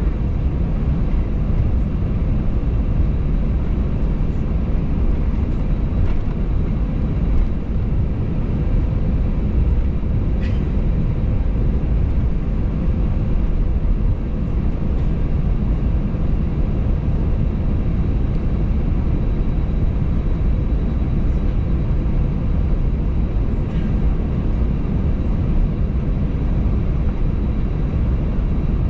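Steady low rumble inside the passenger cabin of an Airbus A320 taxiing, its engines running at taxi power, with a faint steady hum and one brief click about ten seconds in.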